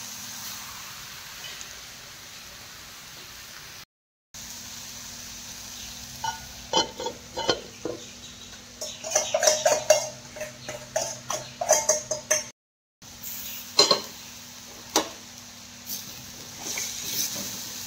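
Kitchen utensils clinking and knocking against pots and dishes in a run of short, sharp strikes. The strikes are busiest in the middle, with a few lone knocks and more clinks near the end, and the sound drops out to silence twice briefly.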